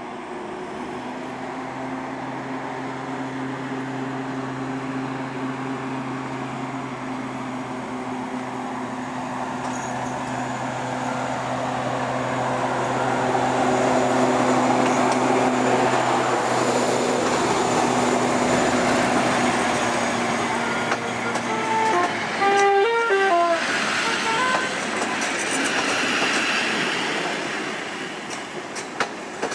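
Dr13 diesel locomotive running under power as it pulls the train past, its engine note growing louder to a peak about halfway through. A few short pitched toots come about two-thirds in. The passenger coaches then roll by with wheel clicks and a hiss.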